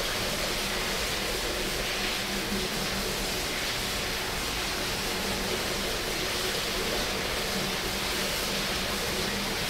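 Water running steadily from a sink tap, an even hiss that starts suddenly and holds, with a faint hum under it.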